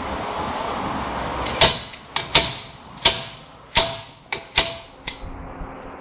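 Slide hammer bolted to a car's front wheel hub: about eight sharp metal clanks, each with a short ring, as the weight is driven against its stop to pull the hub out of the knuckle.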